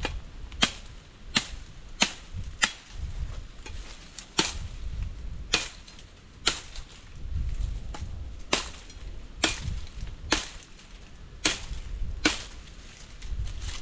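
Machete chopping sticks: about a dozen sharp, separate chops at an uneven pace, some of them louder.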